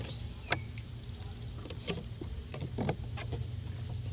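Scattered light clicks and knocks of hand-handled lawnmower parts and tools, at irregular moments, over a steady low hum.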